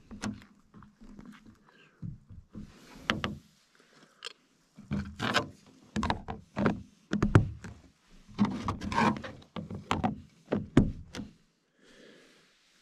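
A plastic spoon stirring and knocking inside plastic camp bowls, then lids being pressed down onto the bowls: an uneven run of knocks, scrapes and clicks.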